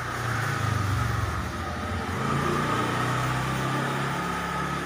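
A motor vehicle's engine running close by, its low hum swelling within the first second and changing pitch about two seconds in.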